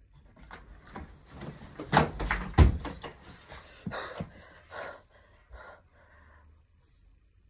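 Irregular knocks, thumps and rustling from a person moving about close to the microphone, the loudest two thumps about two seconds in, dying away to near quiet over the last couple of seconds.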